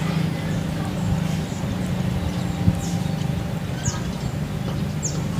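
Steady low mechanical hum with short, high, downward-sweeping chirps from a bird about once a second in the second half.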